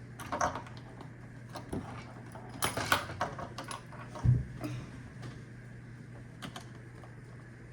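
A screwdriver and the plastic parts of a Roomba 690 being handled during disassembly: scattered light clicks and rattles, a quick cluster of them about three seconds in, and a dull knock just after four seconds.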